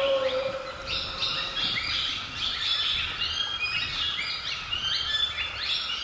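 Jungle ambience: many birds chirping in quick, overlapping short calls, over a steady high drone and a low rush of river water.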